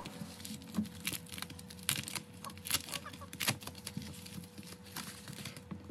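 Metallic bubble mailer being handled and opened by hand: irregular crinkling and crackling of the foil-plastic envelope, with scattered small clicks, over a faint steady hum.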